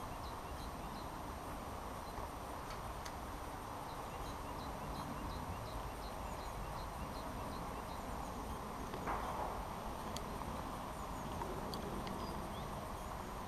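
Outdoor ambience: a steady low rush with a regular run of faint high ticks, two to three a second, and a single brief knock about nine seconds in.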